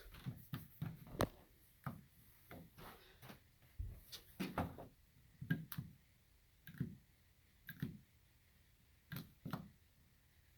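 Irregular light knocks and clicks, some with a low thud, coming every half second to a second or so, like objects being handled or moved about in a small room.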